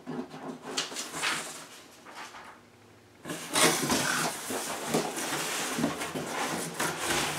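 Cardboard rustling and scraping as a boxed item is worked loose inside a large shipping carton, becoming a steady, louder scraping from about three seconds in as the inner box slides against the carton walls.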